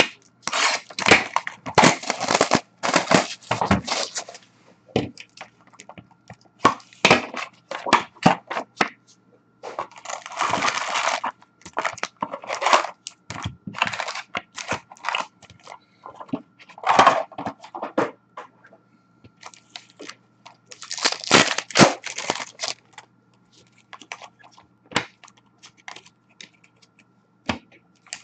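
A box of Upper Deck hockey card packs being opened by hand: cardboard tearing and flexing, and foil-wrapped packs crinkling and clicking as they are pulled out and stacked. Irregular bursts come and go, with a few longer rustling stretches.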